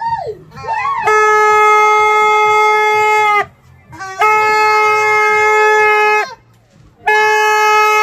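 New Year's party horn (torotot) blown in three long, steady blasts of one held note, each about two seconds, with short breaks between them.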